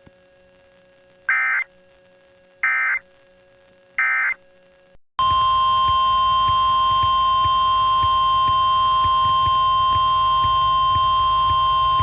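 Emergency Alert System SAME header: three short bursts of data tones about 1.4 s apart. About five seconds in, a loud, steady alert attention tone starts, over radio static, announcing a new warning.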